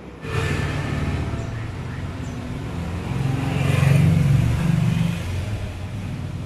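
A motor vehicle's engine running close by, a low rumble that starts suddenly a moment in, grows loudest around the middle and eases off near the end.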